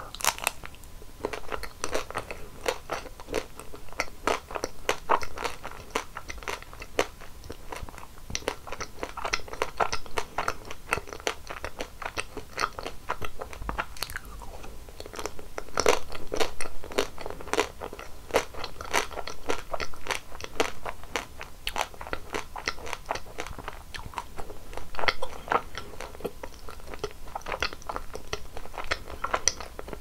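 Close-miked eating sounds: chewing a chocolate-coated ice cream bar, its hard chocolate shell crunching and crackling in dense little clicks. The chewing runs steadily, a little louder around the middle.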